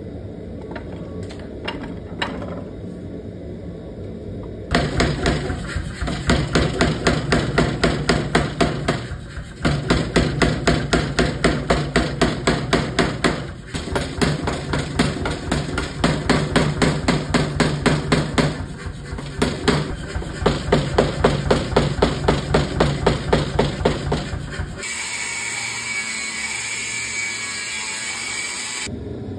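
Power hammer pounding hot steel bar in a fast even run of blows, about four to five a second, with two short pauses, after a few quieter seconds with only light knocks. Near the end the hammering gives way to an angle grinder cutting steel with a steady high whine.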